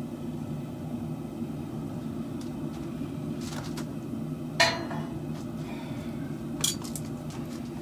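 A few separate sharp metallic clinks of steel being handled or struck, the loudest about halfway through and another near the end, over a steady low hum.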